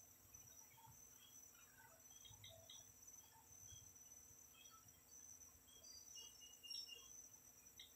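Faint, steady chorus of crickets, a continuous high-pitched trilling, with scattered faint short chirps over it.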